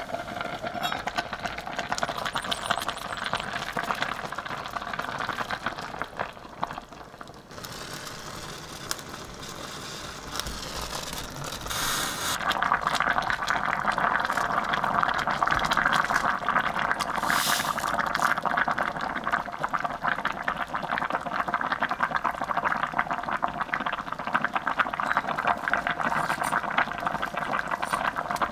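Kimchi stew bubbling at a boil in an enamelled cast-iron pot, getting louder about twelve seconds in.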